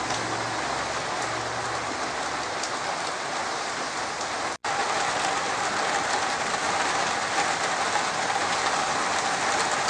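Heavy rain falling steadily, a dense patter of drops. The sound cuts out completely for an instant about halfway through, then the rain goes on.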